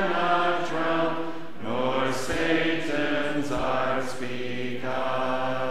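A man's voice chanting the liturgy unaccompanied, in long held notes that change pitch twice.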